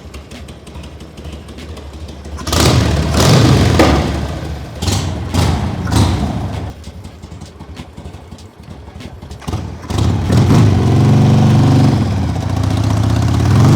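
Harley-Davidson V-twin motorcycle engine idling, then revved in several quick throttle blips and one longer held rev near the end, as the newly repaired throttle cables are tested.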